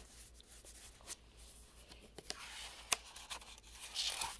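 Faint rubbing and brushing of a hand on the paper page of a hardback picture book, with a few light ticks, as the page is taken hold of to turn. A louder paper brush comes near the end.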